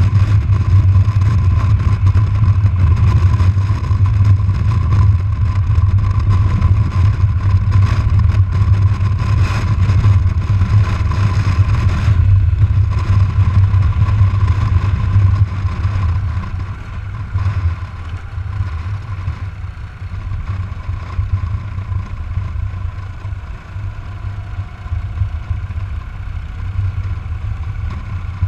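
Harley-Davidson FLHT's air-cooled V-twin engine running at highway speed with wind rush, heard from the rider's seat. About halfway through the engine sound drops and gets quieter as the throttle eases off.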